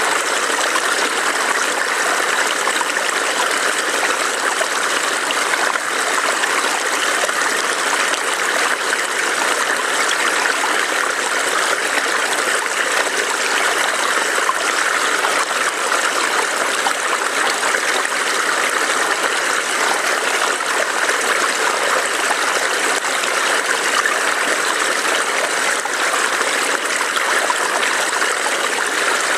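Small forest stream burbling and trickling over rocks, a steady, even rush of water.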